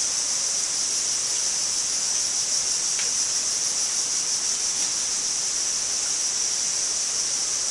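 Steady high-pitched insect chorus, an unbroken drone that does not vary in level. A faint click about three seconds in.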